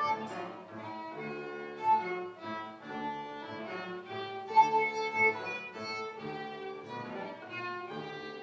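Solo violin playing a habanera melody, with an orchestra of strings and piano accompanying over a repeating low bass line.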